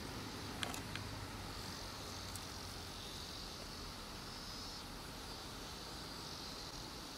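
Outdoor insect chorus, a steady high-pitched chirring that swells and fades slightly, with a couple of light clicks just under a second in.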